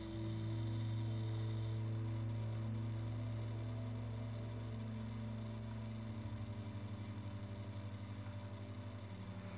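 Low, steady droning background music, an ambient pad with a few held notes above it that change now and then. It starts abruptly and begins to pulse about six seconds in.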